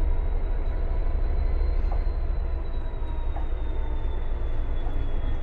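Freightliner Class 66 diesel locomotive 66522, its EMD two-stroke V12 engine running with a steady low rumble as it creeps forward at walking pace. A thin high whine rises a little and then falls away over its running.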